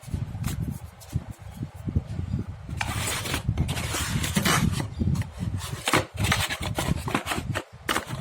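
Handling noise from unboxing: rubbing and scraping of hands against packaging or the laptop close to the microphone, with a stretch of denser, louder scraping from about three seconds in.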